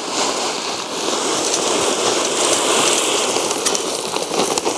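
Pebbles pouring from a bag onto the ground in a steady rush, with a few sharper clicks near the end.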